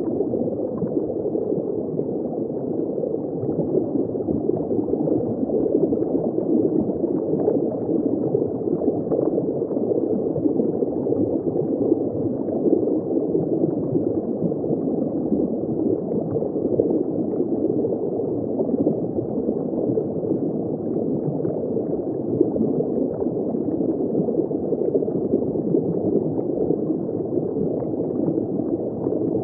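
Steady underwater bubbling and gurgling heard from shallow water, a dense muffled wash of small bubbles with no high sounds.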